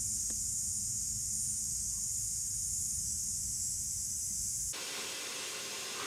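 Small shop vac running, its exhaust blowing air into a large sealed tarp bag: a steady airy hiss over a low hum. A little after three-quarters of the way through it cuts off abruptly, leaving a fainter, even hiss.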